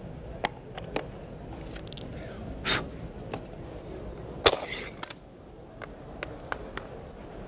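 Scattered knocks and clacks of hardwood strip-flooring pieces being handled and fitted into place. The loudest is a sharp knock about halfway through, followed by a short scrape.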